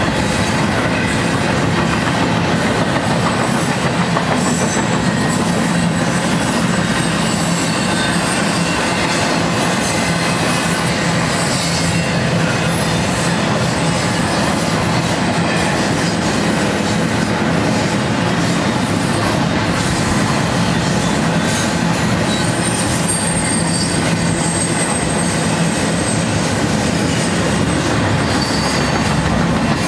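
BNSF double-stack intermodal train's loaded well cars rolling past: a loud, steady rumble and clatter of steel wheels on rail. A thin, high wheel squeal comes in about three-quarters of the way through.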